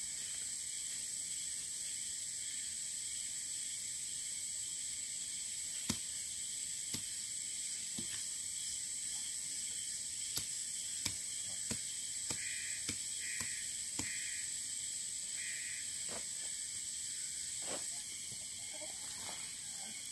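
Steady, high-pitched insect drone, with about a dozen sharp clicks between roughly six and eighteen seconds in as the sections of a tent pole are snapped together. A few short chirps sound near the middle.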